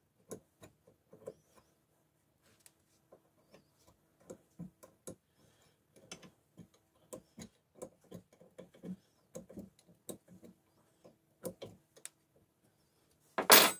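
Steel open-end spanner clicking and scraping against a nut on a cast-iron fly press as it is turned in short strokes and refitted: light, irregular metal-on-metal ticks. A loud metallic clank near the end.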